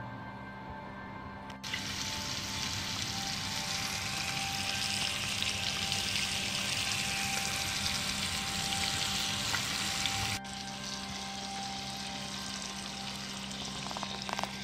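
Bell peppers, onion and ground meat sizzling in a cast iron skillet on a grill, with background music underneath. The sizzle comes in suddenly about two seconds in and drops slightly in level about ten seconds in.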